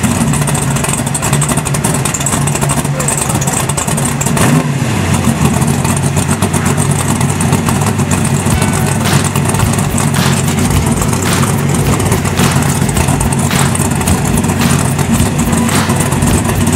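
Drag car's engine running at a loud, steady idle, with a brief rev about four and a half seconds in. Through the second half there are sharp pops about once a second.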